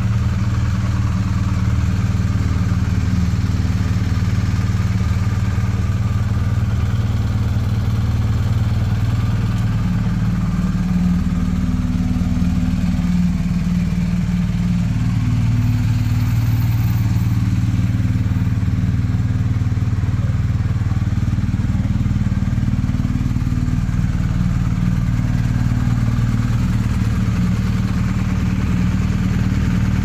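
BMW R1250 GS Adventure's 1254 cc boxer twin idling steadily in neutral, a low even engine note with no revving.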